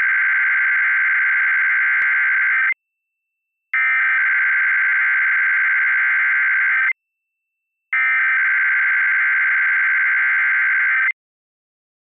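Emergency Alert System SAME header: three identical bursts of buzzing digital data tones, each about three seconds long with about a second of silence between, encoding a Required Weekly Test.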